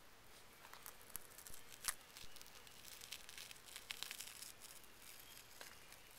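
Catfish skin being pulled off the flesh with pliers: faint tearing and crackling with scattered small clicks, the sharpest about two seconds in.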